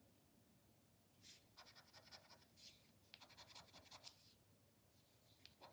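Faint scratching of the latex coating off a paper scratch card in several short bursts, starting about a second in, uncovering the card's numbers.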